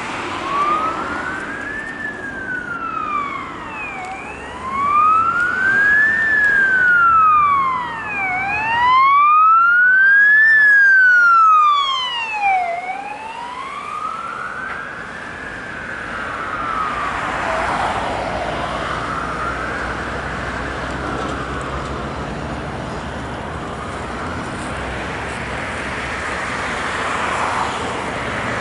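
Ambulance siren in a slow wail, the pitch rising and falling about every four seconds, loudest as it passes about ten seconds in, then fading into the noise of passing traffic.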